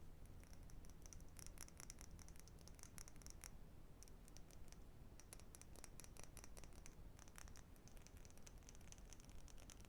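Quiet, rapid tapping on books, in quick flurries of light clicks broken by short pauses.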